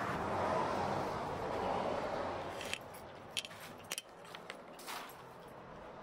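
A steady rushing noise fades away over the first three seconds. Then come footsteps on a gritty, littered floor: about five sharp clicks and scuffs.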